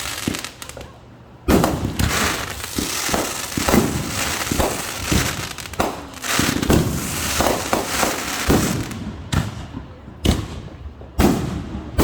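Fireworks going off: after a brief lull, a dense barrage of sharp bangs and crackling starts about a second and a half in, then thins to a few separate booms near the end.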